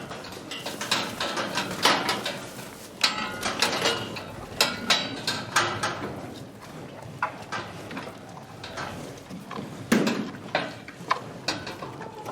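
Cows grazing: grass torn and chewed in a run of irregular crunching, ripping strokes, with a louder tear about ten seconds in.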